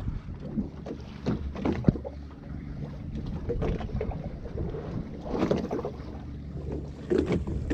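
Wind buffeting the microphone on a small fishing boat at sea, with water sloshing around the hull and scattered short knocks.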